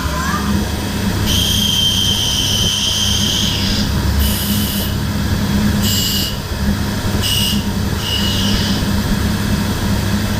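CNC mill-turn machine (DMG Mori NTX1000) running with a steady hum while its carbide tool cuts brass, giving high-pitched squeals: one lasting about two and a half seconds, then four shorter ones, the last sliding down in pitch.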